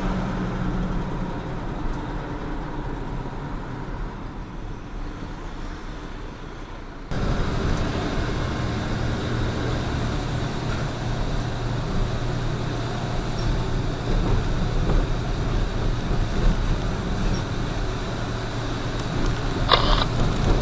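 Truck engine running steadily with road noise as the truck drives, heard through a dashcam; the level and road noise jump at an edit about seven seconds in, to wet-road driving. A brief high-pitched sound comes near the end.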